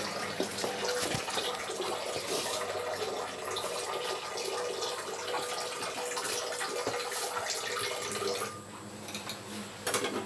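Water running steadily, with a few light knocks; the water noise drops away about eight and a half seconds in.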